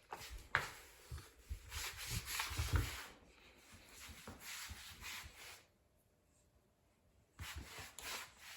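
Rustling, scuffing scrapes with soft thumps from a kitten scrambling about on fabric bedding, stopping for about two seconds before a short last burst.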